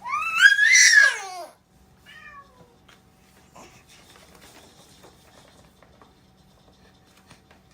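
A cat meowing: one loud, long meow that rises and then falls in pitch, followed about two seconds in by a shorter, quieter falling meow, then faint clicks and rustling.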